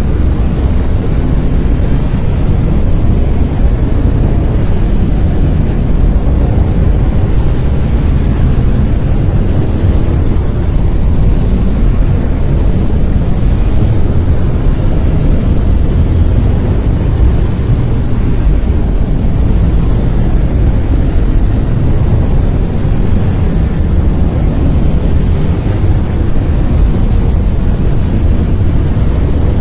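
Brown noise: a steady, deep rumbling hiss with most of its energy in the bass, unchanging throughout.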